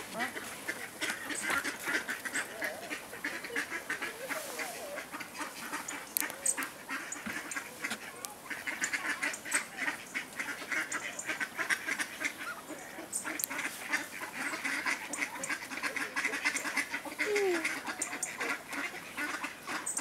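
A flock of waterfowl, ducks and geese, calling continuously with many overlapping calls.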